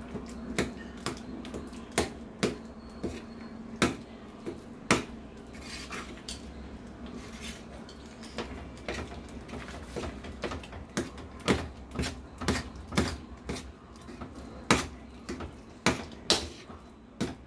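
A steel ladle knocking and scraping against a heavy stainless-steel kadai as thick sweet pongal is stirred, a run of irregular clinks about one or two a second.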